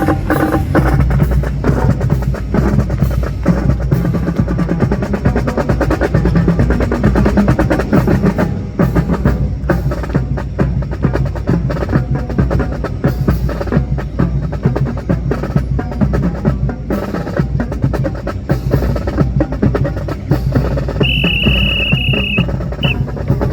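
Drum cadence accompanying the drill: rapid snare strokes and rolls over a bass drum. Near the end a high steady tone sounds for about a second and a half, then once more briefly.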